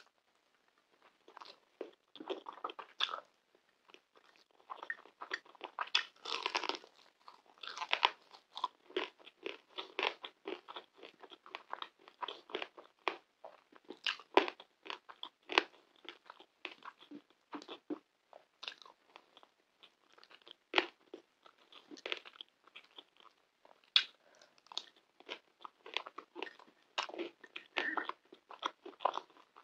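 Close-miked eating sounds: wet chewing with irregular crisp crunches and mouth clicks, from mouthfuls of saffron rice, pan kebab and fried potato tahdig eaten by hand.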